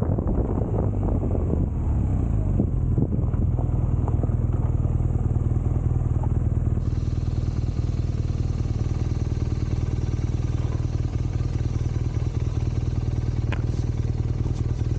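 BMW R nineT Scrambler's 1170 cc boxer twin running as the bike slows off the road. About three seconds in it settles to a steady, even idle that holds to the end.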